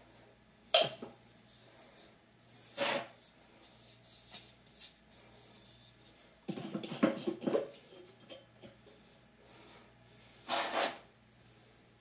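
Handling noises from a can of PVC pipe cement and its dauber: a sharp click about a second in, short rubs near three seconds and near the end, and a run of clicks and scrapes in the middle.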